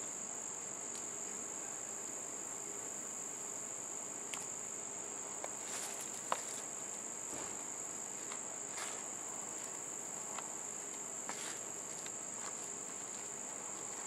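Steady, high, unbroken trill of insects outdoors, with scattered soft rustles and small clicks of gloved hands digging through potting soil in a plastic tub, the sharpest click about six seconds in.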